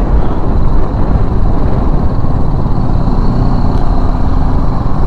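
Motorcycle running on the move, a steady low rumble with irregular buffeting that sounds like wind on the microphone.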